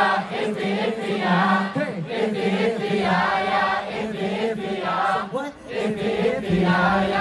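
A crowd singing a cheering song together over music.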